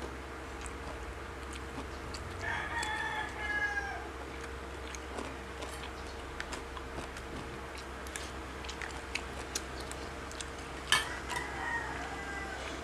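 A rooster crowing twice, about two seconds in and again near the end, each crow a second and a half or so with a falling end. Scattered sharp clicks of eating and handling food between the crows.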